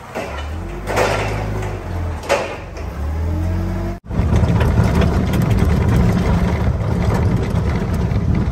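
Vehicle engine running with a steady low hum. About four seconds in, the sound cuts abruptly to a louder, rougher low rumble.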